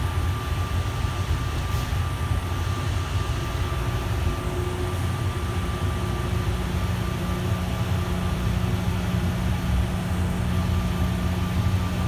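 Bombardier Innovia APM 100 automated people mover running along its guideway, heard from inside the car: a steady low rumble of its rubber tyres and running gear with a thin high whine over it. A lower steady hum joins about halfway through.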